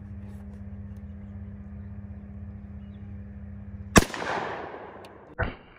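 A single shot from a Springfield Armory M1A rifle in .308: a sharp crack about four seconds in, followed by a ringing echo that dies away over about a second. A steady low hum runs beneath it beforehand, and a shorter thump comes about a second and a half after the shot.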